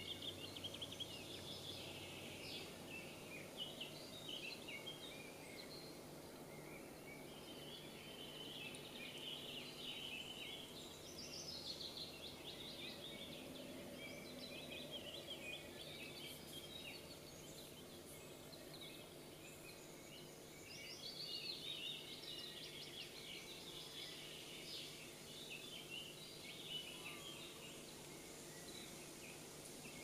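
Several small birds singing and calling at once, a faint, continuous chorus of quick chirps and trills.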